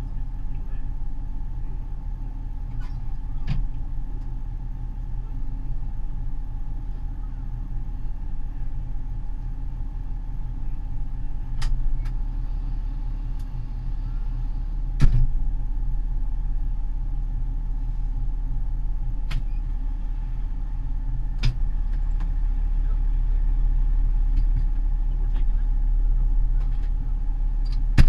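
Fire engine's diesel engine idling, heard from inside the cab: a steady low drone with a steady hum above it. Occasional sharp clicks and knocks come through it, the loudest about halfway through.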